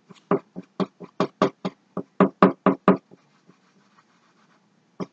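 Paintbrush strokes knocking against a stretched canvas: a quick run of short taps, about four a second, that stops about three seconds in.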